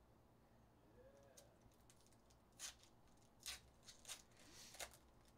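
Faint handling of trading cards and a foil pack wrapper: a few light clicks and a short crinkle in the second half, over near silence.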